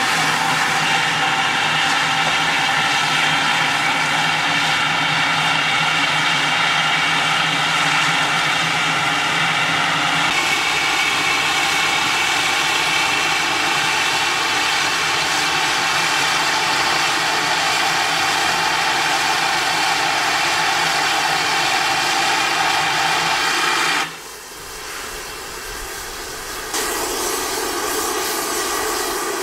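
Steam locomotive standing in steam, a steady loud hiss and roar of escaping steam. The sound changes abruptly about ten seconds in, dips for a few seconds near the end, then comes back.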